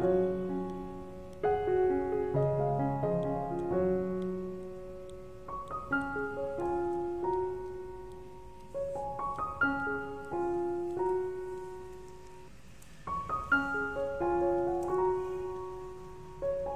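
Soft background piano music: a gentle melody of single notes over low chords, played in phrases with a short lull about twelve seconds in.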